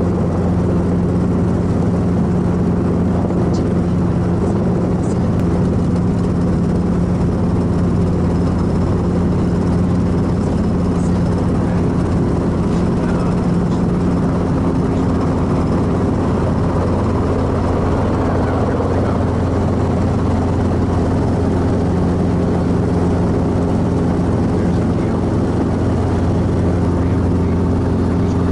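Light piston-engine helicopter in forward flight, heard from inside the cockpit: a steady engine and rotor drone at an even pitch and level.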